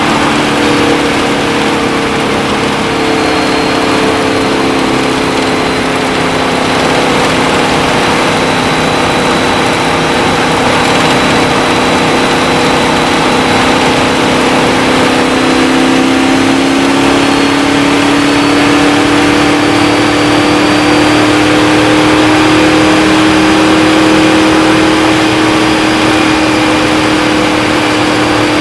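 Indy car engine running at high, steady revs, heard from the cockpit, its pitch climbing gently partway through.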